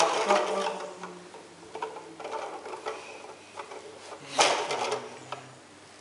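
A camcorder's zoom motor whirring in two stretches as the lens zooms in, with one sharp knock about four and a half seconds in.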